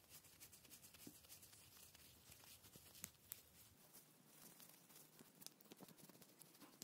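Faint scraping and scattered light clicks of small metal parts handled in gloved hands: a rusty speedometer drive shaft worked in its threaded housing. The clicks grow more frequent near the end.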